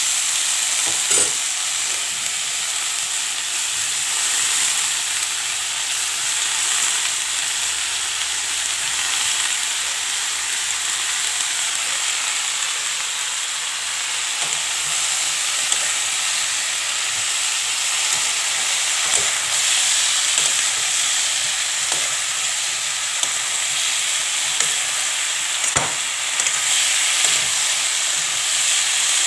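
Cauliflower frying in hot oil in a pan, a steady sizzle, with a few sharp clinks of a cooking utensil against the pan.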